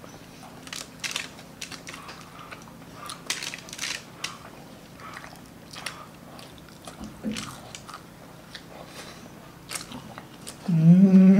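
Close-up crunching and chewing of crispy deep-fried pork belly with crackling skin (lechon kawali): a string of sharp, crackly bites. Near the end a person gives a loud, drawn-out hum that rises and then falls.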